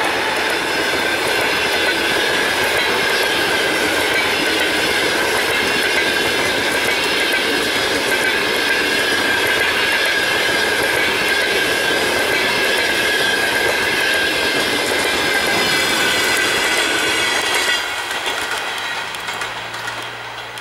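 Passenger coaches passing at speed, a steady loud rush of wheels on rails with a high ringing tone that slowly drops in pitch. Near the end the noise falls away as the last coach goes by and the train recedes.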